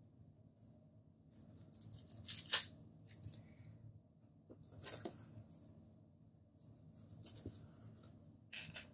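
Stickers being peeled from a sticker sheet and pressed onto planner paper, with paper and a crinkly plastic sheet rustling under the hands. Several short rustles and crackles, the loudest about two and a half seconds in.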